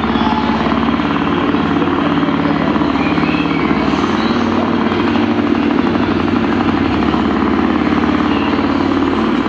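Steady engine-like motor noise with a rapid pulse, loud and unbroken.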